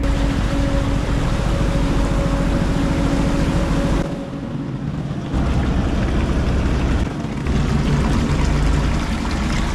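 Boat under way: engine running, mixed with loud rushing wind and water noise. The level drops and comes back abruptly several times.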